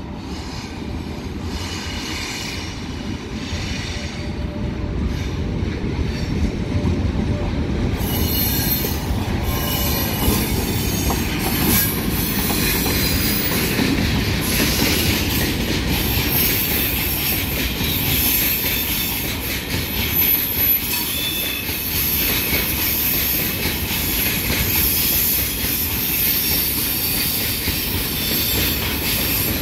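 A freight train hauled by a VR Sr1 electric locomotive passing close by, growing louder over the first several seconds as it approaches. As the locomotive and then the container wagons roll past, the wheels squeal high-pitched on the rails, with some clicking over the rail joints.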